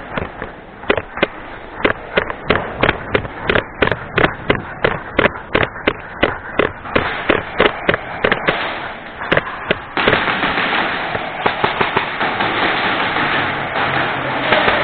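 Airsoft guns firing a long run of sharp shots, about two to four a second, with small gaps. About two-thirds of the way in, this changes abruptly to a dense, steady rush of noise.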